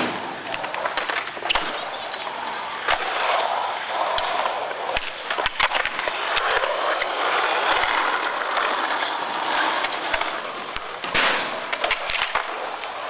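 Skateboard wheels rolling on concrete, with sharp clacks of the board popping and landing scattered throughout. The rolling noise is loudest around the middle.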